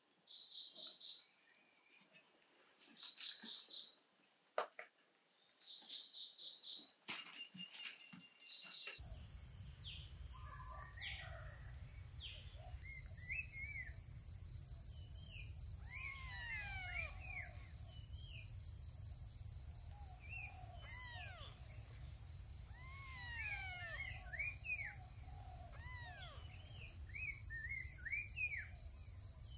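Outdoor ambience: a steady high insect drone with short chirping calls. About nine seconds in it changes abruptly to a low hum under the drone, with many quick rising-and-falling chirping calls.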